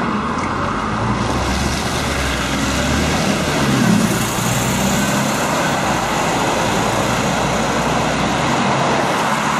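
Scania OmniCity single-decker bus passing close on a wet road: diesel engine running and tyres hissing, loudest as it goes by about four seconds in, then drawing away.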